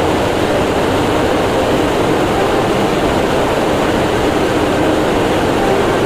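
Loud, steady machinery noise with a faint hum running through it, typical of a ship's engine room with machinery running.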